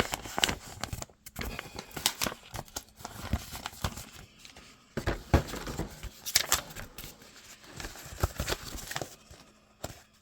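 Paper sheets rustling and crinkling as they are handled, with irregular sharp crackles and clicks.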